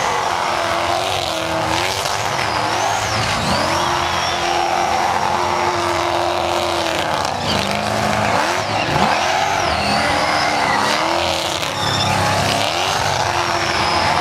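A supercharged, alcohol-fuelled Holden HK GTS Monaro engine held at high revs through a burnout, the revs surging up and down and dropping sharply twice about halfway through. Under it runs the screeching hiss of the rear tyres spinning on the bitumen.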